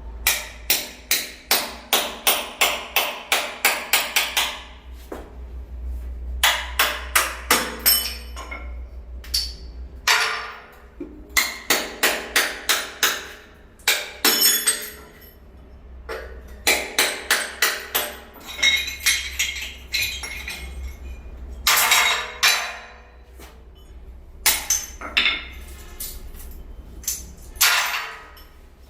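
Hammer striking hard ceramic tile in quick runs of sharp clinking blows, about four a second, broken by short pauses. This is typical of chipping out broken tile during a repair.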